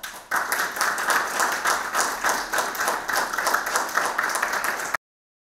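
Audience applauding: many hands clapping together in a dense, even clatter that cuts off suddenly near the end.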